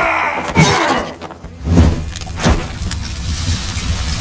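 Sound effects of an animated logo intro: a falling tail of a shout, then three sharp hits, the loudest just under two seconds in, over a steady low rumble and hiss that comes in with it.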